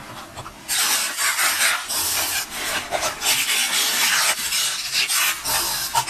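Fingertips rubbing washi tape down onto a paper journal page: a scratchy, uneven rasping that starts about a second in and carries on.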